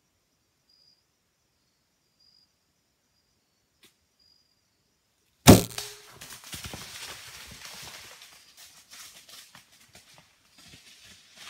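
Crickets chirp in a steady repeating pattern, then about halfway through a bow is shot: one sharp, very loud thump of the released string. Several seconds of crashing and rustling in dry leaves and brush follow, fading and picking up again near the end.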